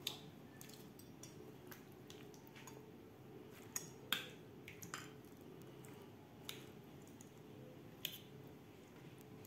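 Faint, scattered clicks and light knocks of metal tongs against a ceramic bowl as pieces of boiled chicken are set into a grated-coconut mixture, with a soft squish of the food, over a faint steady background hum.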